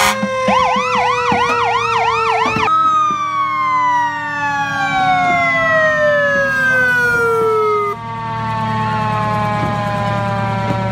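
Fire engine siren: a rapid warbling yelp for about two seconds, then a long wail that glides slowly down in pitch, then holds steadier tones, with the truck's engine rumbling low underneath.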